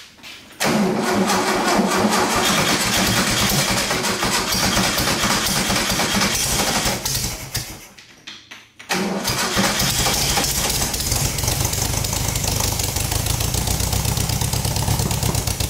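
Air-cooled Volkswagen flat-four engine of a long-stored VW trike being started on choke. It runs for about six seconds and fades out, then fires again about nine seconds in and runs until it cuts off near the end.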